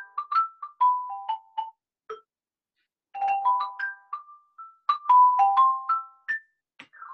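Ross xylophone played with two mallets: quick runs of single struck notes, each ringing briefly. The playing breaks off for about a second after about two seconds, then picks up again.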